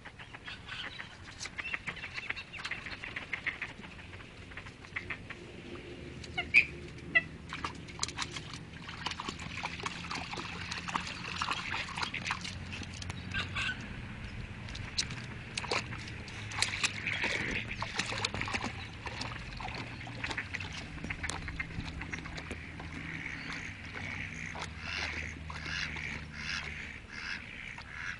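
Wild ducks quacking over and over, with scattered splashes in the water from a dog wading and swimming after them.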